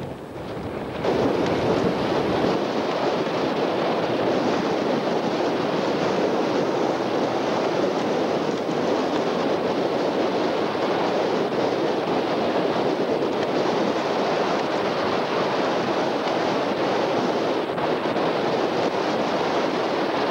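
Blizzard wind blowing hard over the microphone, a steady rushing noise that jumps louder about a second in.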